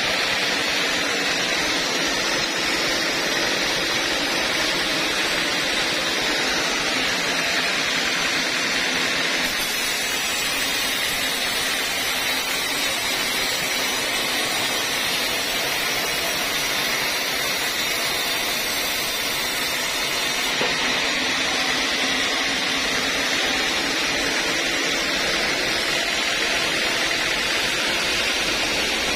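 Band sawmill running steadily while its blade cuts through old teak timber on the carriage; for about eleven seconds in the middle the sound turns hissier.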